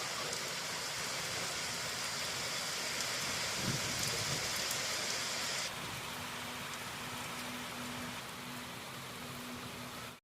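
Steady rain, an even hiss that turns a little duller about halfway through.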